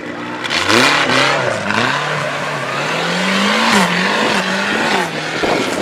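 Off-road tube-frame buggy's engine revving hard as it charges through a mud pit, its pitch climbing about half a second in and then swinging up and down, under a loud rush of spinning tyres and flying mud.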